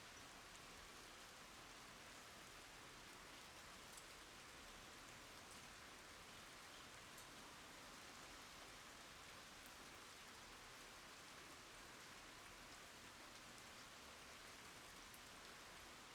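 Rain falling on wooden boards and puddled water: a faint, steady hiss with a few separate drop ticks.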